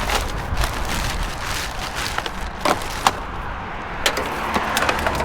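Scattered knocks and clicks of scrap being handled, several sharp ones about two and a half to five seconds in, over a low steady rumble.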